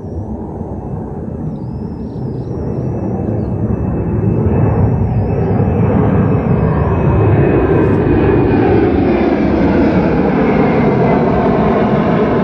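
A low engine rumble that swells over the first few seconds and then holds loud and steady, with a faint high wavering tone in the first half.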